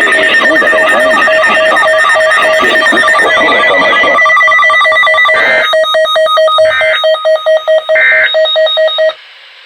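Emergency alert signalling on a weather radio broadcast: an electronic tone beeping rapidly over and over, with three short bursts of data noise about a second apart near the end, then the signal cuts off. This is the alert coding that comes before the spoken severe thunderstorm warning.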